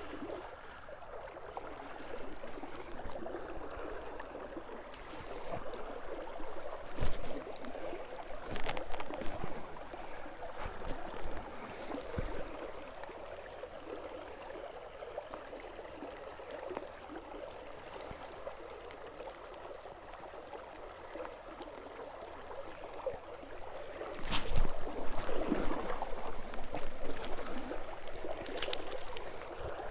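River water running over the shallows, with a few scattered knocks. Near the end there is a louder stretch of splashing.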